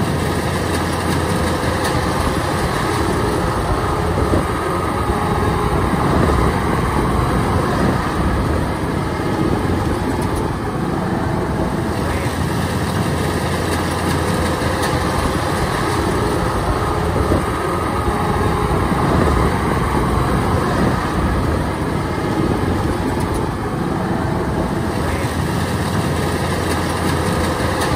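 Kubota DC-105X combine harvester's diesel engine running steadily as the machine harvests rice.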